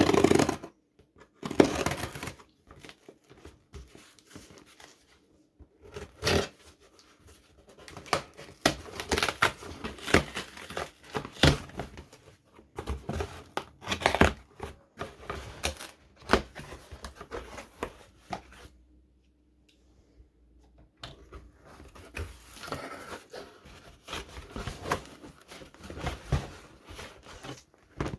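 Packaging being opened by hand: irregular cutting, tearing and crinkling of tape and wrapping, with clicks and knocks of the box being handled, pausing briefly past the middle.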